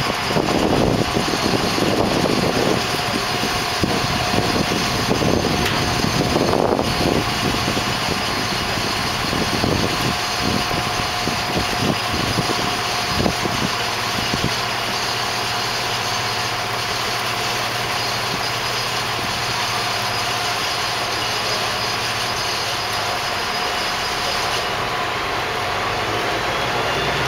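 Mobile crane's diesel engine running steadily as it powers the lift of a heavy load, with irregular knocks through the first half.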